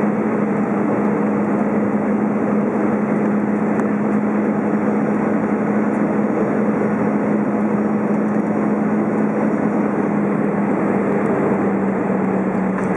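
Airbus A320 cabin noise on final approach, heard from a seat over the wing: a loud, steady rush of engine and airflow noise with a constant low hum.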